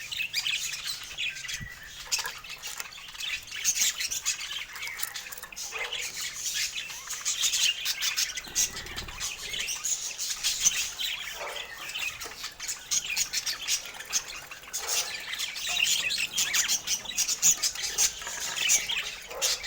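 Budgerigars chattering and chirping steadily: a continuous stream of quick, high, scratchy chirps and warbles.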